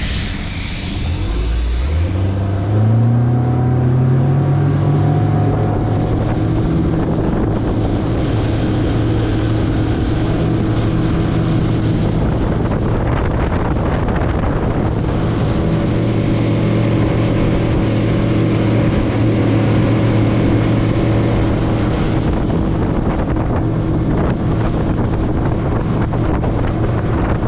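115 hp Yamaha V Max SHO outboard motor throttling up, its pitch rising over the first few seconds, then running steadily as the boat cruises, with wind buffeting the microphone.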